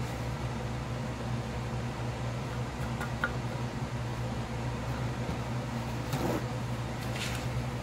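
Steady low machine hum, with a couple of faint soft scraping sounds near the end as eggplant slices are pressed into flour on a plate.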